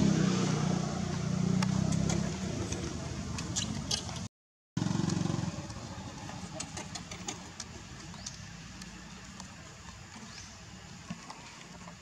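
A motor engine running steadily, loudest in the first few seconds and fading away after the sound cuts out briefly about four seconds in. Scattered light clicks throughout.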